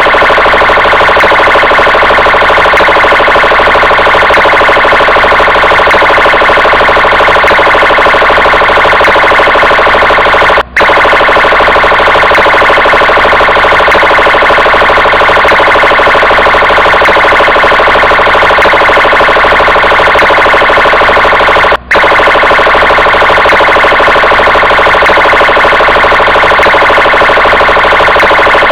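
Brazilian police car siren sounding continuously and loudly, cutting out for an instant twice, about eleven seconds apart.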